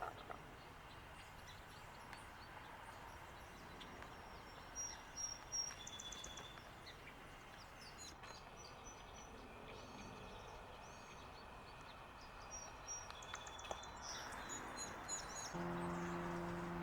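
Steady faint outdoor background noise with short, high bird chirps and trills scattered through, several in quick clusters. Near the end a steady low hum with several even tones sets in.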